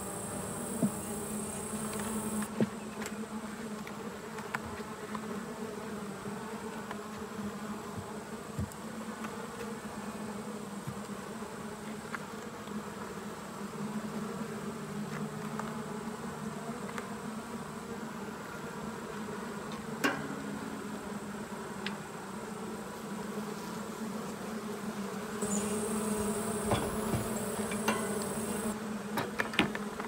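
Honey bees buzzing in a steady hum over an opened hive during an inspection. Scattered sharp clicks and knocks, the loudest about twenty seconds in, come from the wooden frames being handled.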